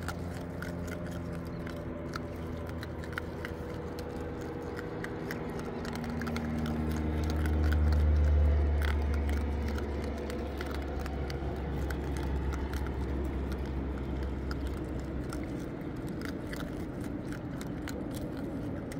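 Young raccoons chewing and crunching scattered dry food bits on rock: a steady patter of small crunches. Under it a low droning hum swells to its loudest about eight seconds in, then fades.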